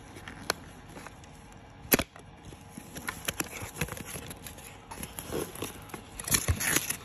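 Cardboard makeup-kit box being handled and opened by hand: a sharp click about half a second in, a louder knock about two seconds in, then a run of small taps and scraping rustles of card as the kit is pulled out of its outer box, busiest near the end.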